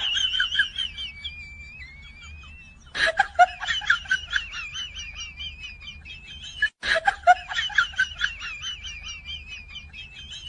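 High-pitched chirping and trilling in quick short notes, coming in three similar runs of about three and a half seconds each, the same pattern played over again.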